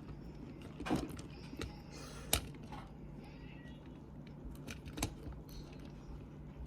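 Scattered small clicks and taps of hands working on a plastic toy and its small parts, the sharpest about two and a half seconds in, over a faint steady hum.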